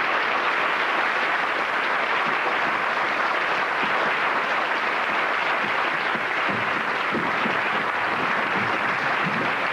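Theatre audience applauding steadily.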